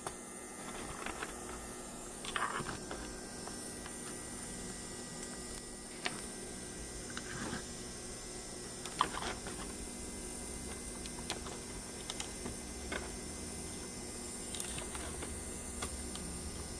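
Scattered short clicks and taps at irregular intervals, the sharpest about nine seconds in, over a steady electrical hum with a constant high whine.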